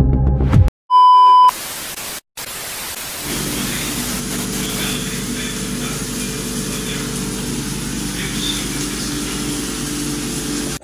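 A short, loud beep tone about a second in, then a steady hiss with a low, even hum under it that sets in about three seconds in.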